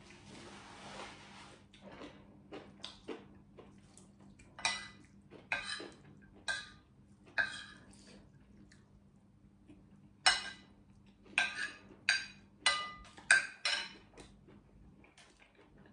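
Metal spoon clinking and scraping on a ceramic plate: about a dozen sharp, ringing clinks, in two clusters from about four seconds in and about ten seconds in. At the start there is a soft hiss of a tissue wiped at the nose.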